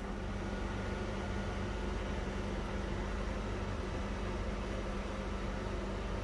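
Steady hiss with a low, even hum underneath: background room noise with nothing changing.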